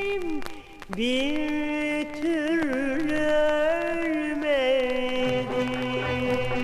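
Old vinyl record of Turkish classical song playing with light surface clicks. A woman's voice holds long, wavering, ornamented notes over the accompaniment, and about five seconds in the orchestra takes over with a low bass line.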